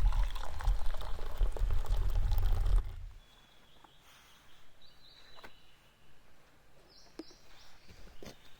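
Liquid being poured, a noisy splashing pour with a low rumble, for about three seconds before it stops abruptly. A few small faint clicks follow.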